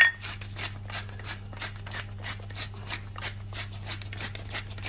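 Hand-held pepper mill grinding peppercorns: a rapid, even run of crunching clicks from the turning grinder.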